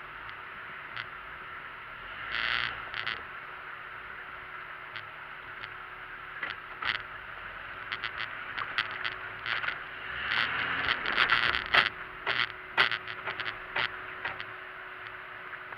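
4x4 crawling slowly over a rocky trail: a steady hiss under a run of sharp knocks and clatters as it rolls over rocks, busiest and loudest about ten to fourteen seconds in.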